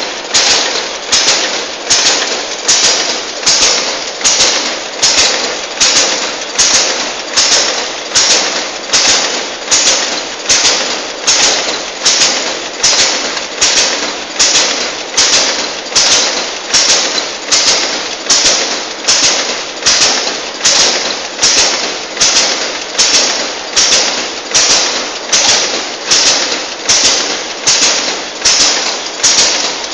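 Packaging machine fitted with a Savema SVM 32i thermal transfer overprinter running on a production line: a sharp clack repeats steadily about four times every three seconds, each one trailing off in a brief rush of noise, as the film is indexed and printed each cycle.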